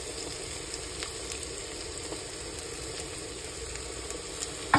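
Chopped garlic and ginger sizzling steadily in hot oil in a kadhai, with a sharp knock near the end.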